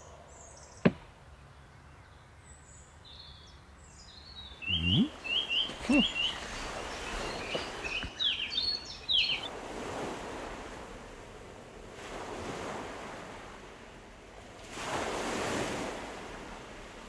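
Ocean waves washing in slow swells, with birds chirping in quick runs in the first half. A single sharp click sounds about a second in.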